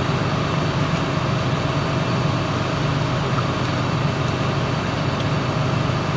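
A boat's onboard engine running steadily: an even, low drone with a hum that does not change.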